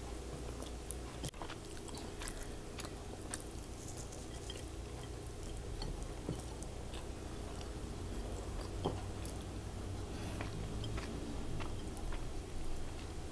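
Chewing and mouth sounds of someone eating with her hands, with lip smacks and many small wet clicks.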